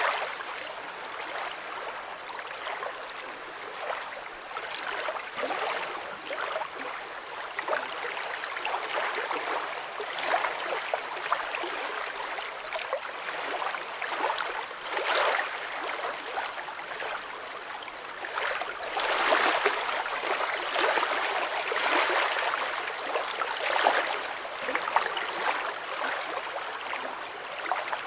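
Water flowing and gurgling: a steady rushing hiss full of small bubbling splashes, growing louder for a few seconds past the middle.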